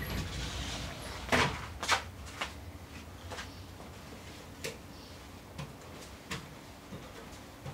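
Light knocks and clatters of a surfboard being handled indoors and lifted onto a board rack by a sliding door. The two loudest knocks come about a second and a half in, followed by fainter taps every second or so.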